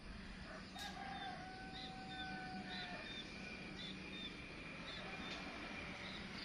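A rooster crowing once, a long held call starting about a second in, while a small bird repeats short high chirps about once a second.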